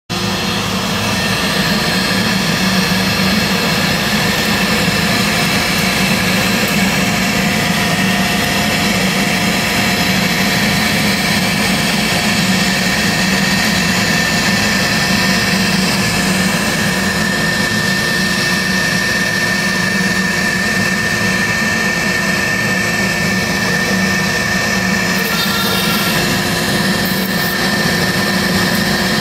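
CNC router spindle running steadily as its small bit carves into a wooden board: a steady whine, with the noise of the bit cutting the wood.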